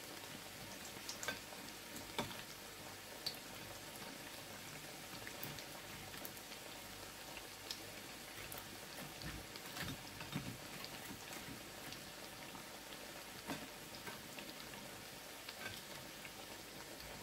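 Wedges of breadfruit frying in shallow oil in a stainless-steel pan, a soft steady sizzle with scattered small pops and crackles. The wedges are being left in to fry well done.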